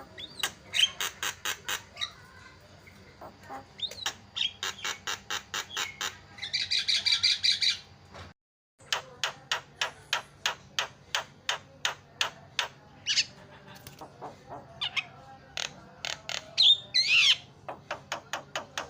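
Javan myna calling: rapid trains of sharp, clicking notes at about five a second. A harsh rasping burst comes around six seconds in, and a few whistled glides come in the second half. The sound drops out briefly midway, then the note trains carry on.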